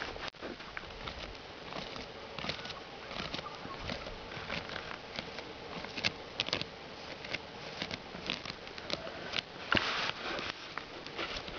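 Wombat digging into dry soil: claws scraping and scratching, with loose dirt pattering, in irregular strokes. A longer, louder burst of scraping comes about ten seconds in.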